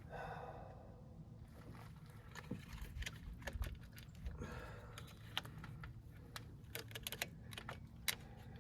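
Scattered light clicks and taps of hand tools and plastic parts being handled while working around a coil pack in an engine bay, irregularly spaced, over a faint steady hum.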